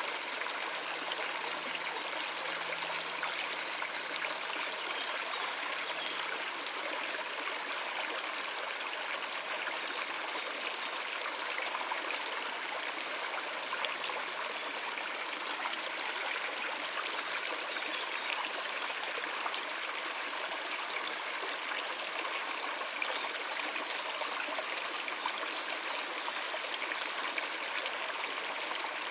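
Stream water running over rocks: a steady rushing babble with small trickles and gurgles.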